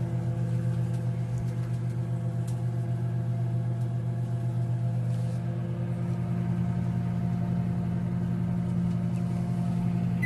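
Microwave oven running with a steady electrical hum while onions inside arc, with a few faint snaps from the sparking. The hum stops at the very end.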